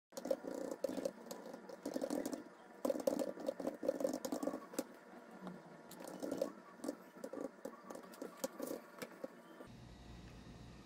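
Fast typing on a compact computer keyboard: rapid keystroke clicks in bursts with short pauses. Near the end the clicking stops and gives way to a steady low background hum.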